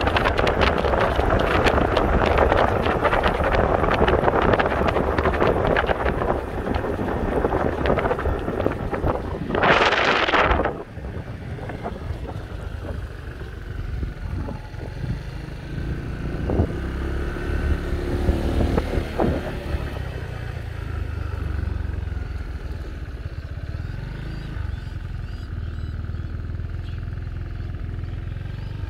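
Motorbike ridden along a road, with its engine and wind rushing over the microphone. A brief loud rush comes about ten seconds in, after which it is quieter and a low steady engine sound goes on as the bike slows and stops.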